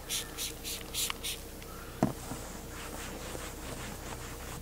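Trigger spray bottle of all-purpose cleaner squirting about six times in quick succession, then a cloth rag rubbing over a fibreglass roof surface.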